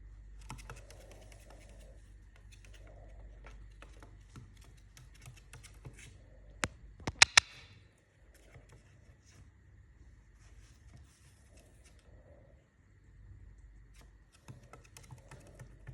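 Scattered light clicking and scratching, with a few loud sharp clicks in a quick cluster about seven seconds in, over a faint steady hum.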